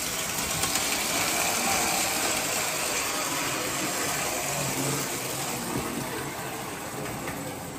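Tinplate toy trains running: a Lionel prewar 9U Standard Gauge electric locomotive pulls freight cars, its motor and wheels on the steel track making a steady mechanical rumble. The rumble is louder for the first few seconds as it passes close and eases off near the end.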